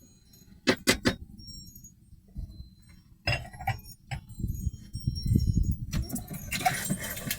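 Kitchenware being handled: metal and glass clinking and clattering, with three quick sharp clinks about a second in, another cluster of clinks midway, and rustling handling noise toward the end.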